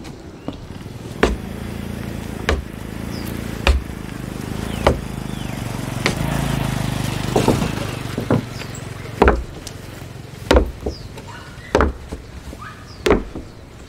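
Slow, regular footsteps on a railway track, a sharp step about every second and a quarter. Under them a vehicle engine hums, growing louder through the middle and fading again, as it passes.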